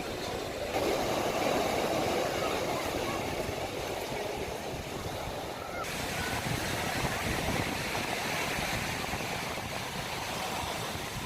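Outdoor ambient noise, a steady rushing haze with no clear tones, changing abruptly about a second in and again around six seconds in.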